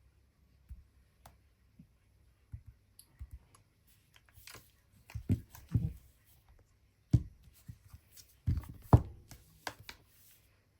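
Handling noise: scattered light clicks and taps, then heavier knocks and thumps from about five seconds in, the loudest about seven and nine seconds in.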